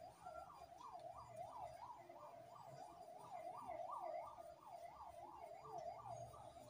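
Faint siren wailing up and down rapidly and evenly, about two to three sweeps a second.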